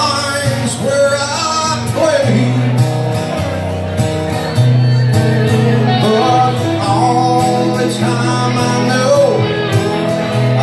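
Live band music: a man singing over a strummed acoustic-electric guitar and an electric guitar.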